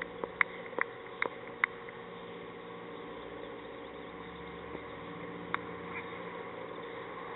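Open-air cricket-ground ambience under a steady low hum, with a few short sharp clicks in the first two seconds. About five and a half seconds in comes one sharp knock: the cricket ball's impact as the delivery reaches the batsman.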